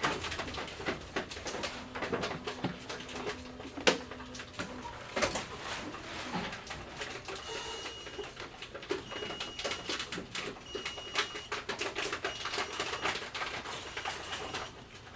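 Grocery store bottle return machine (reverse vending machine) running, with continual irregular clattering and clicking of containers being handled. A low hum sounds in the first few seconds, and short high beeps repeat through the second half.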